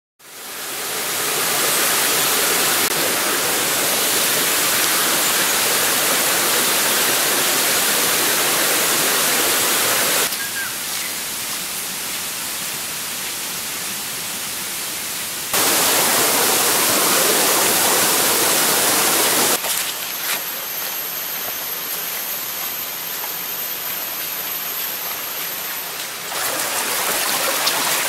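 Rushing water of a small rainforest waterfall and stream, a steady hiss heard across several cut-together clips: loud for the first ten seconds, quieter for about five, loud again, then a softer stretch with a thin steady high tone over it, then stream water again near the end.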